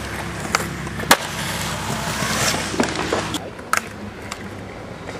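Skateboard wheels rolling on concrete, with sharp clacks of the board and trucks striking, the loudest about a second in. About three and a half seconds in the rolling gets quieter and a few more clacks follow.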